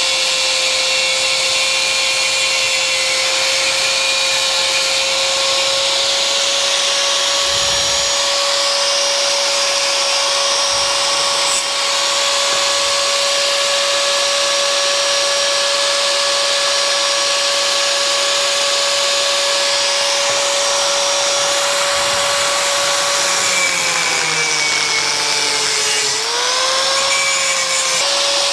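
Ozito 100 mm angle grinder with a cutting disc cutting through a steel motorcycle kickstand: a steady high whine over a loud hiss. Near the end the pitch sags as the disc is loaded harder, then picks back up.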